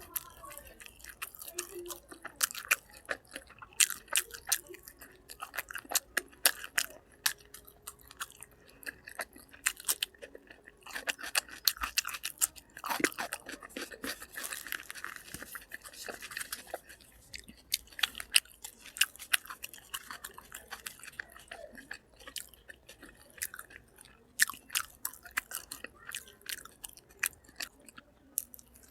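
Close-miked chewing and biting of food, with many irregular wet crunches and clicks. Somewhat denser crunching a little before the middle.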